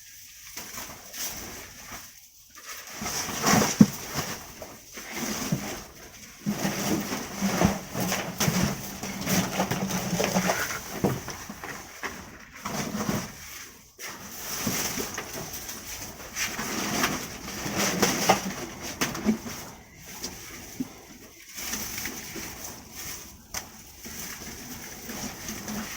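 Irregular scraping, rustling and knocking from debris and weeds being cleared off a greenhouse floor.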